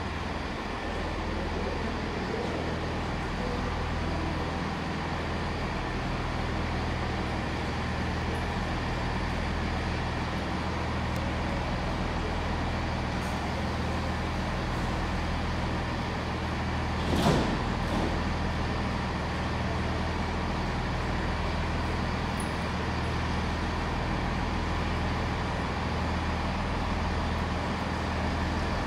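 Class 165 diesel multiple unit 165130 running in and standing at the platform with its underfloor diesel engines running, a steady low hum. A short sharp sound comes about seventeen seconds in.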